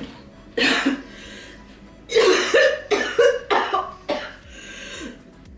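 A woman's deliberate, put-on coughing: one hard cough about half a second in, then a quick run of about five harsh coughs.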